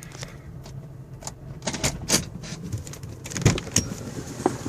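Cadillac Northstar V8 idling roughly and chugging, with irregular sharp clicks over an unsteady low rumble: a severe misfire whose cause the owner suspects is intake manifold gaskets or spark plugs.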